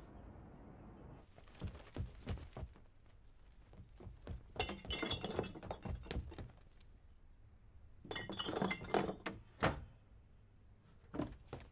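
Objects clattering and clinking inside a wooden box as it is rummaged through. The clattering comes in two longer bursts, with single knocks and thuds before, between and after them.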